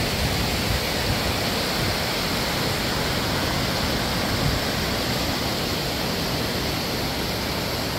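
Waterfall: falling water rushing in a steady, even wash of noise.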